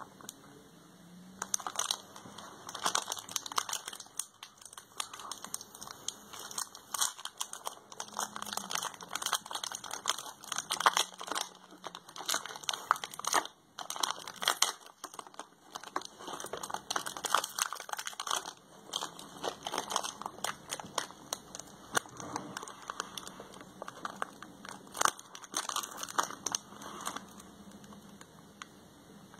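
A KitKat's plastic and foil wrapping being crinkled and torn open by hand, in irregular crackling that starts about a second and a half in and stops shortly before the end.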